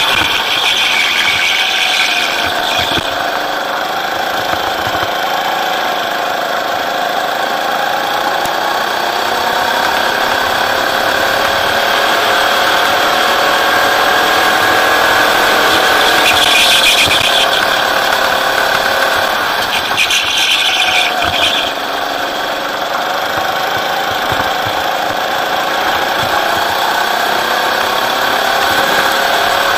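Rental go-kart's petrol engine heard from the driver's seat, running hard, its pitch rising and falling as the driver throttles through corners and down straights. Short high-pitched tyre squeals come three times: at the start, about halfway, and a few seconds after that.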